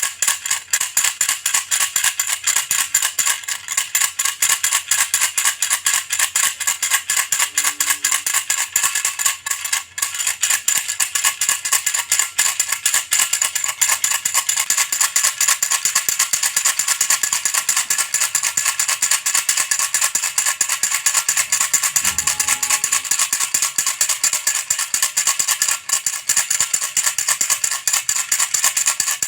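Baby's toy rattle shaken fast and without a break, a dense, steady rattling of small beads.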